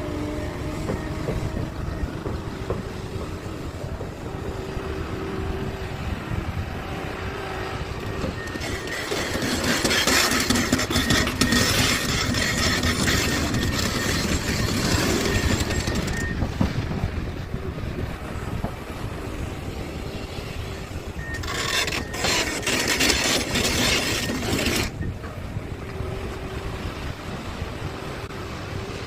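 Large hydraulic excavator (Komatsu PC650LC) working: a steady low diesel rumble with faint engine tones throughout. Two louder stretches of harsh mechanical noise rise over it, an eight-second one about a third of the way in carrying a steady high whine, and a shorter one about three quarters of the way through.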